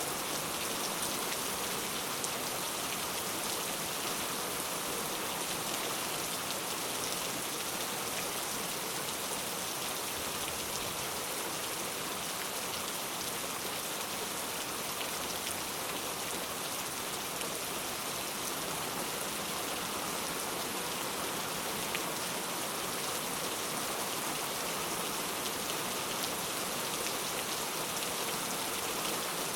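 Heavy rain falling steadily, an even, unbroken hiss of rain.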